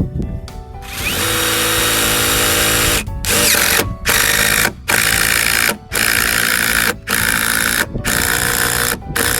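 Power drill driving long screws, running in a string of about eight bursts of roughly a second each with short stops between.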